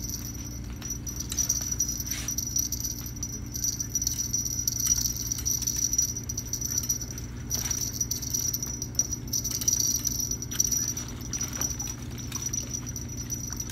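Steady low hum under a steady high-pitched buzz, with scattered light clicks and knocks from fishing rods and tackle being handled on the raft.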